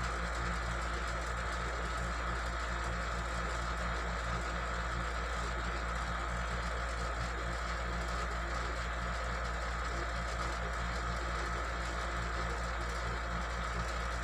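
A steady mechanical hum that holds the same level throughout.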